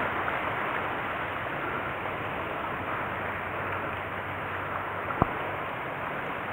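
Steady wash of wind and gently lapping shallow water on a coral reef flat, with one sharp click about five seconds in.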